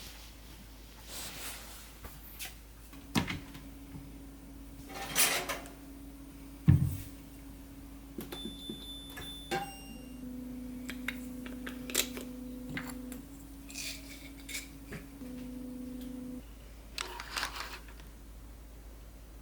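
Household handling noises: scattered knocks and clinks of dishes and utensils, the loudest a dull thump about seven seconds in, over a steady appliance hum that stops near the end.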